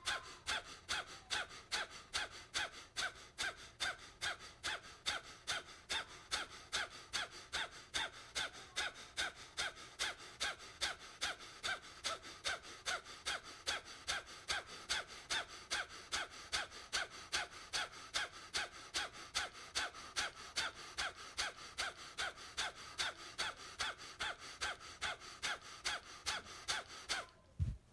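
Kapalbhati pranayama breathing: short, forceful exhalations through the nose, each driven by pulling the belly in, in a steady rhythm of about two a second. The breaths stop abruptly near the end, followed by a brief low thump.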